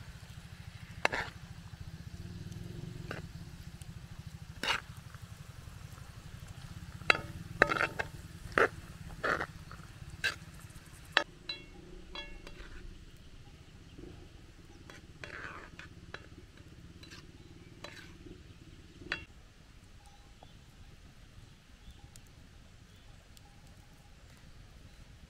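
Cookware and utensils clinking and knocking: a dozen or so sharp strikes, bunched in the middle, some ringing briefly.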